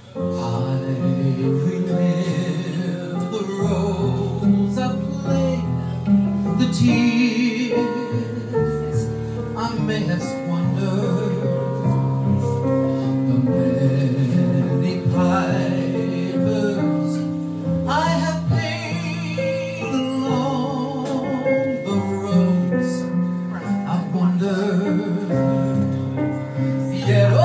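Live band music: a Yamaha keyboard and a drum kit playing a slow song, with a male singer's voice at times.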